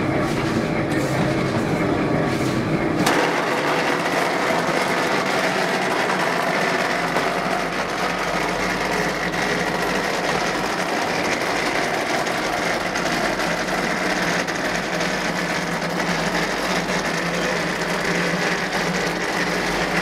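Automatic wall rendering machine running steadily as its trowel carriage climbs the mast, spreading mortar on the wall. About three seconds in the sound changes abruptly to a higher-pitched steady machine noise.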